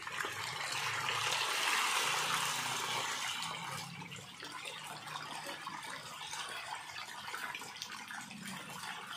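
A dense crowd of pond fish churning and splashing at the water's surface as they feed, a continuous watery splashing that is loudest in the first few seconds.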